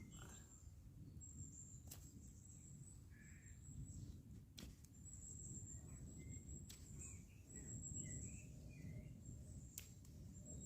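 Quiet woodland ambience: a low steady rumble with a few faint bird chirps and four or five sharp clicks spaced a couple of seconds apart.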